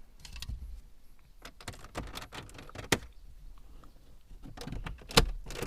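Scattered sharp plastic clicks and knocks of car interior trim being pried and pulled off the centre console, with a loud click about five seconds in.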